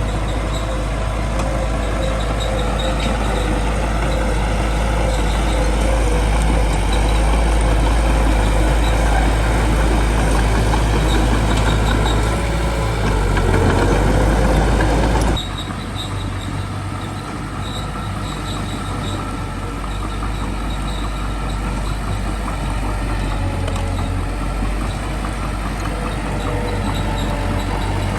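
Small bulldozer's diesel engine running steadily under work. The sound drops abruptly about halfway through and carries on a little quieter.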